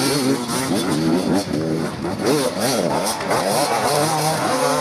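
Enduro motorcycle engine revving up and down in repeated short throttle blips, its pitch rising and falling sharply several times.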